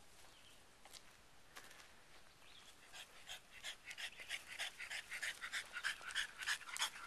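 A dog panting, about five quick breaths a second, starting about two and a half seconds in and growing louder.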